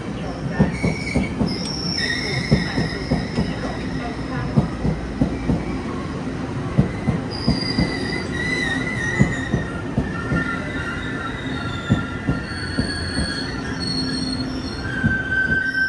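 Taiwan Railways E1000 push-pull Tze-Chiang express coaches rolling past as the train arrives and slows, wheels clicking rapidly over the rail joints with high squeals coming and going.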